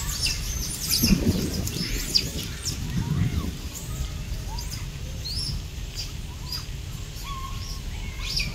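Many short, high chirps and squeaks from animals calling, scattered throughout over a steady low rumble, with louder low, rough calls about one second and three seconds in.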